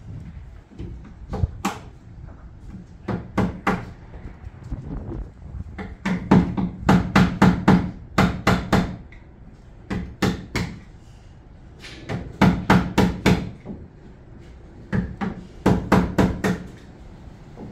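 Hammer blows on plasterboard and timber framing. They come in several quick runs with short pauses between, the longest a steady string of strikes at about three a second.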